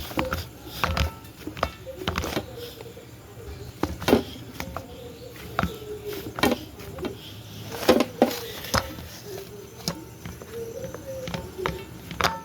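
Irregular knocks and taps of a rolling pin and hands working pizza dough on a board, the loudest knock about two-thirds of the way through.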